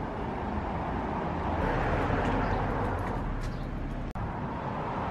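Steady outdoor background noise with a low rumble, swelling a little in the middle, and a brief break about four seconds in.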